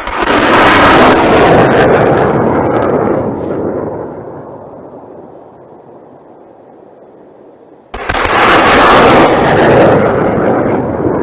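Two very loud heavy artillery blasts. The first rumbles away over several seconds; the second comes about eight seconds in, stays loud for about three seconds and cuts off suddenly.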